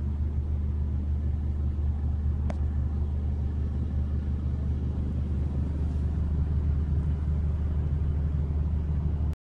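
Mercedes-Benz Actros truck's diesel engine idling steadily, a low even rumble heard from inside the cab, with a faint click about two and a half seconds in; the sound cuts off abruptly near the end.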